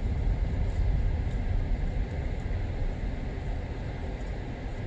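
Steady low rumble of vehicle and road noise, easing slightly partway through.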